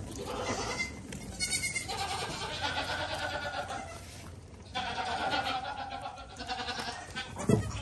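Young goat kids bleating, several long wavering calls overlapping one another. A sharp thump near the end.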